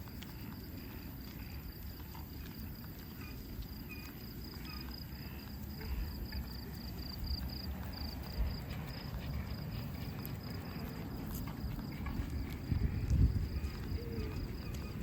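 Insects trilling steadily at a high pitch over a low rumble, with a louder low thump about 13 seconds in.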